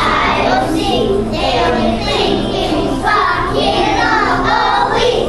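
A group of kindergarten children singing a song together.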